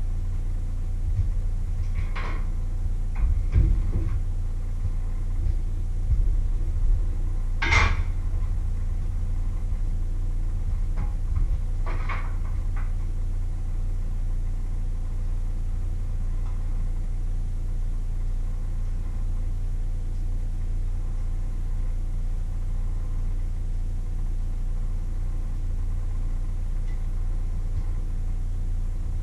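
A steady low hum, with a few knocks and clinks of cookware and utensils being handled in the first dozen seconds, the sharpest about eight seconds in.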